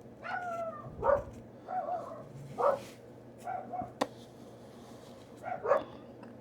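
A dog whining and yipping in short, separate calls, several of them falling in pitch, the last two close together near the end. One sharp click about four seconds in.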